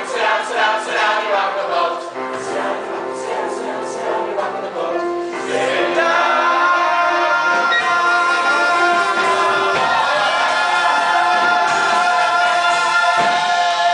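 Stage musical cast and chorus singing the finish of a show tune, loud and rhythmic at first, then holding one long final chord from about six seconds in.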